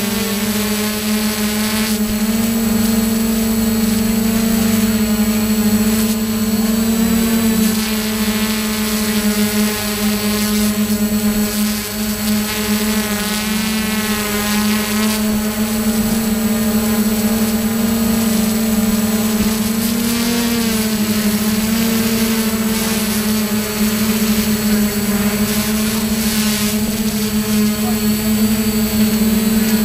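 Quadcopter drone's propellers and motors humming steadily in flight, with a few brief wavers in pitch as the motors adjust.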